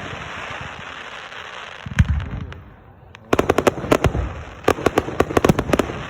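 Fireworks going off: a crackling hiss, a deep boom about two seconds in, then a rapid string of sharp bangs and crackles through the second half.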